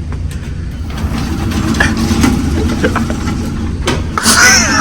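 Steady low rumble of a car's engine heard from inside the cabin, with a few faint clicks and a man's voice briefly near the end.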